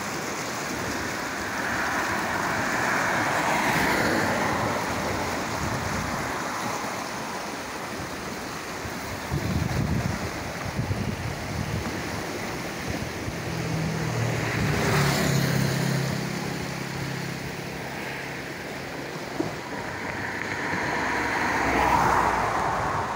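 Fast-flowing floodwater of the swollen River Lugg rushing past a bridge wall: a steady, even rush. A motor vehicle's engine is heard passing on the road over the bridge for a few seconds around the middle.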